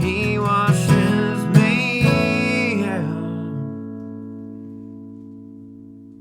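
Acoustic guitar and voice finishing a country song: the singer holds the last sung words over the guitar, then a final strummed chord about two seconds in rings out and slowly fades away.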